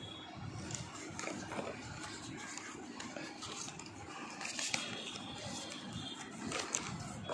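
Cardboard packaging being handled and shifted: irregular scraping and rustling, with a few light knocks in the second half.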